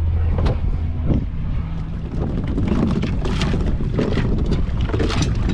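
Wind buffeting the microphone on a small boat at sea: a rough, gusting rumble. A steady low hum fades out about half a second in.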